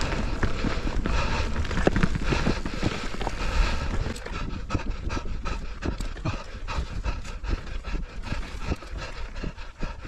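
A mountain biker panting hard, rhythmic breaths at first, over short knocks and rattles from the bike and tyres on a rough dirt trail.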